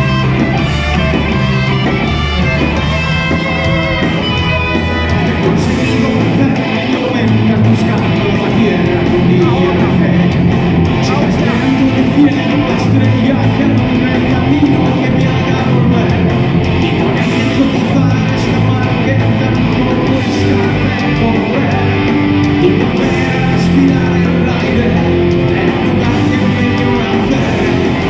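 Heavy metal band playing live in a hall: distorted electric guitars, bass, drums and keyboard together. A wavering high melody stands out over the band in the first few seconds.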